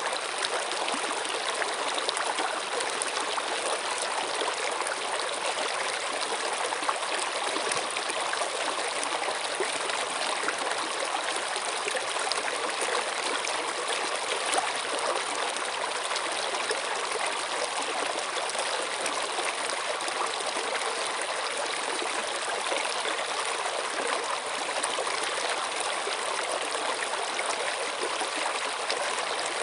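Flowing water making a steady, unbroken rushing sound with no pauses or changes.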